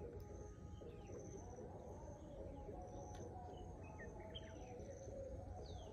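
Quiet creekside ambience: scattered short bird chirps and a high insect call repeating in even short pulses, over a low steady background rumble.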